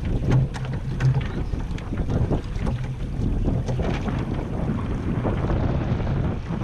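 Wind rushing over the camera's microphone with water splashing against the hull of a Weta trimaran sailing slowly, with frequent short knocks and slaps.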